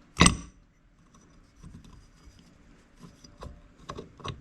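Metal parts of a Saginaw power steering pump clinking and scraping as they are fitted into the pump housing by hand. There is one sharp clack just after the start, then a few lighter clicks and scrapes.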